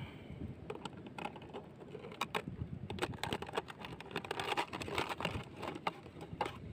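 Thin plastic water bottle crackling and clicking as it is handled with a live crab inside. The clicks are rapid and irregular, thickest around the middle.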